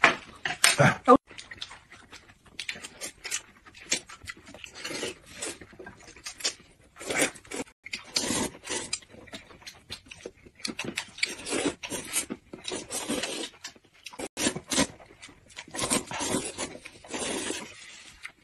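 People slurping and eating bowls of hot and sour sweet potato noodle soup: irregular wet slurps and short sucking noises, some sharp, coming every second or so.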